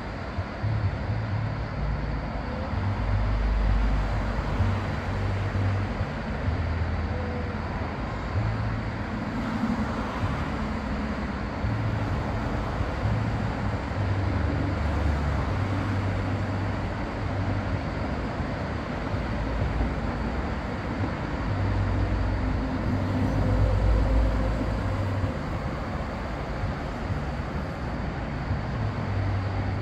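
Steady outdoor background noise with an uneven low rumble that swells and fades every second or two.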